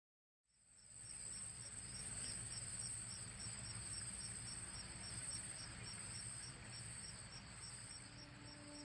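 Crickets chirping faintly: a steady high trill with a second, regularly pulsing chirp under it, fading in during the first second.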